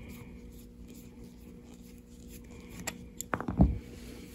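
Light handling of a small steel slide pipe wrench as it is taken apart, with a short cluster of metal clicks and clinks about three and a half seconds in, over a faint steady hum.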